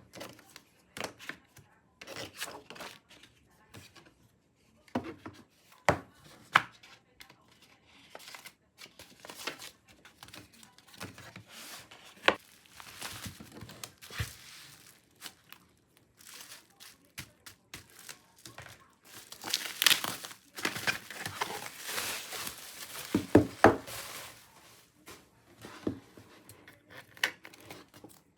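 Album packaging being handled and opened: crinkling and tearing with scattered taps and clicks, busiest and loudest about twenty seconds in.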